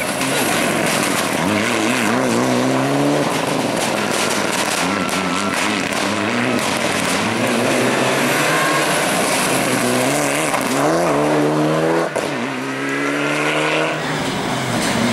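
Mitsubishi Lancer Evo IX rally car's turbocharged four-cylinder engine driving hard on a stage, its pitch climbing and dropping again and again through gear changes and lifts.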